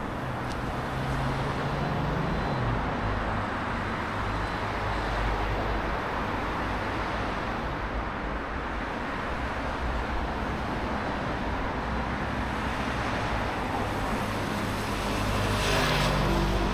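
Street traffic: cars running past over a steady road noise. One engine's hum drops away about three seconds in, and another vehicle passes close near the end.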